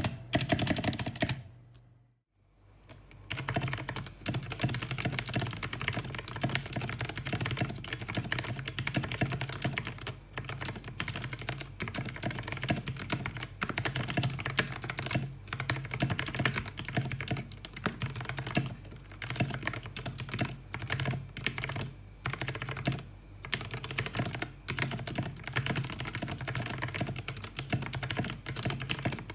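Continuous fast typing on a Vortex VX5 mechanical keyboard with Outemu Brown tactile switches lubed with Tribosys 3203, a foam-dampened case and PBT keycaps. Each keystroke gives a short clack, and the typing pauses briefly about two seconds in.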